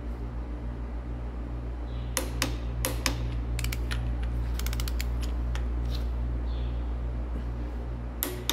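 Torque wrench ratcheting and clicking in short runs as bolts are pulled up to 100 ft-lb, over a steady low hum.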